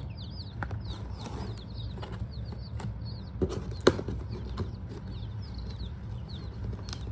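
Baby chicks peeping in their shipping box: a constant run of short, high cheeps from many birds at once. A few knocks and scrapes come through, the loudest a sharp knock about four seconds in, over a steady low hum.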